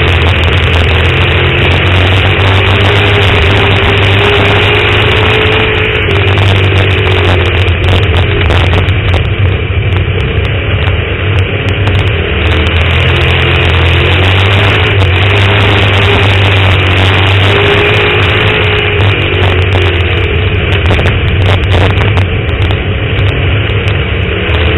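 Dirt-track race car engine running hard on board the car, loud and continuous, its pitch rising and falling every few seconds as the car goes round the oval.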